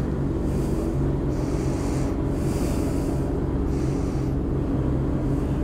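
Motorcycle engine running steadily at an even pitch, with breathing hissing close to the microphone every second or so.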